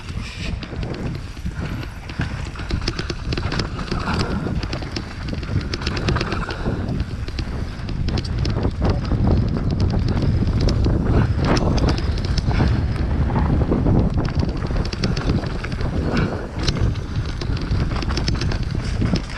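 Mountain bike descending a rough dirt trail: tyres running over dirt and roots, with constant rattling and knocking from the bike over a low rumble. It gets louder in the second half.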